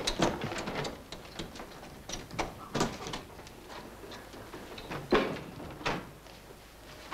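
Irregular knocks and clatter, a door-like bang or two among them, the loudest about five seconds in.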